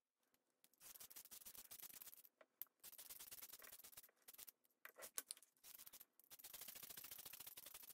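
Faint scratchy crackling in several stretches with brief pauses, from a hot glue gun squeezing glue onto a metal candle-holder base.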